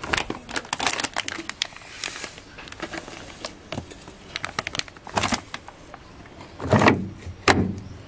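Plastic detergent box of a Von Hotpoint top-loading washing machine being handled as washing powder is added: a run of sharp clicks and knocks of hard plastic, the loudest about five, seven and seven and a half seconds in, with light rustling of the powder packet.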